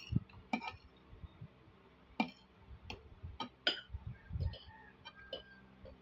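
Metal spoon and fork clinking and scraping against a ceramic plate of rice while eating: about a dozen sharp, irregular clicks, a few ringing briefly, with soft low thumps between them.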